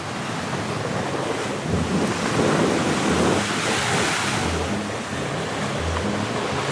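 Surf breaking on the shore and wind blowing across the microphone, louder from about two seconds in.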